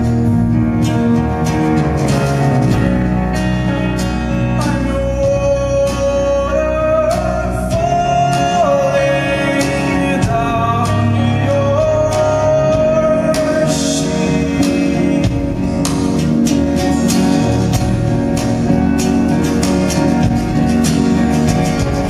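Live band performing a song: strummed acoustic guitar, drums with frequent cymbal hits, and a sung melody with long held notes in the middle.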